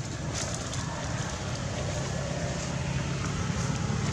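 Steady low rumble with an even hiss over it, with no calls or other distinct events standing out.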